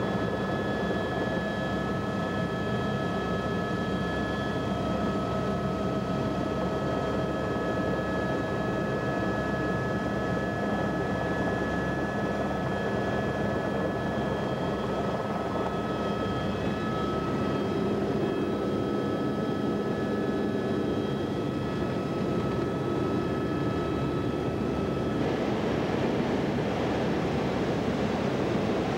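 Steady engine and rotor drone of a tour helicopter heard from inside the cabin, with a few constant whining tones over the rumble. Near the end a brighter rushing hiss of air joins in.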